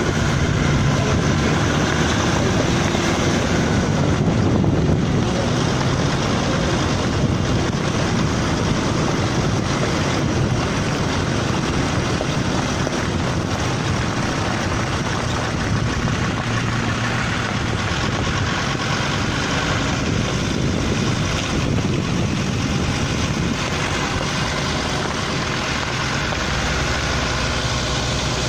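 4x4 driving along a dirt track: steady engine and tyre noise mixed with wind rushing over the microphone.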